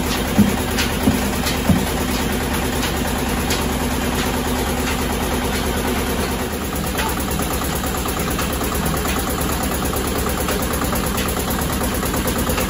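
Oil expeller press running steadily, its motor and screw giving a continuous mechanical hum while it squeezes oilseed and pushes out pressed cake. Three sharp knocks stand out in the first two seconds.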